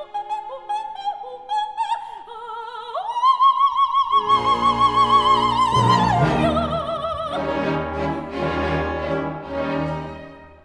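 Background music: an operatic voice singing with strong vibrato, rising to a long held high note about 3 seconds in, with orchestral accompaniment coming in underneath about a second later. The music fades out near the end.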